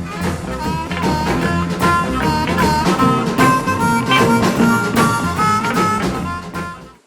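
Blues music playing loudly, with a steady beat; it cuts off about seven seconds in.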